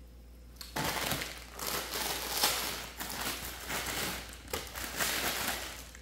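Plastic instant-ramen packet crinkling and rustling as it is handled, in irregular rustles that start about a second in.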